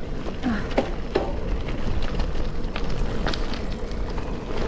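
Gravel bike being ridden: a steady low rumble of tyres and moving air, with many small clicks and rattles from the bike.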